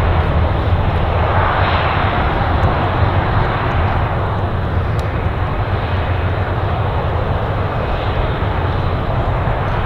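Jet engines of a Boeing 737-800 running: a steady jet rush with a strong low rumble, swelling briefly about two seconds in and then easing off.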